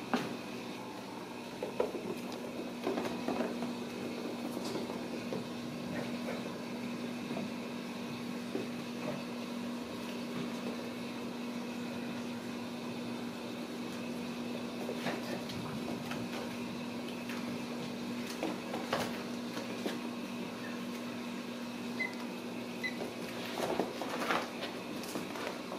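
Light scattered taps, clicks and rustles of a Ragdoll kitten playing with toys on a tile floor, over a steady low electrical hum from an appliance in the room.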